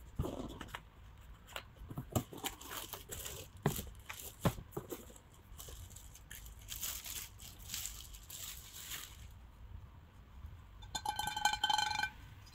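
Cardboard boxes and plastic wrapping handled while a frying pan is unpacked: scattered taps and rustles, then a stretch of plastic-bag crinkling as the pan is unwrapped. Near the end a brief ringing tone lasts about a second.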